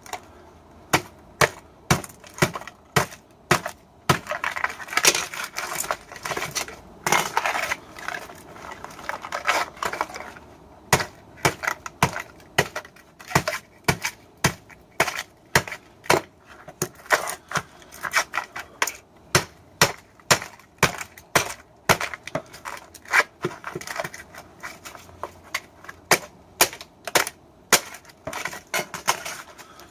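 Repeated hammer blows on a microwave oven transformer, about two sharp strikes a second with short stretches of scraping between them, as it is broken apart to free the copper windings.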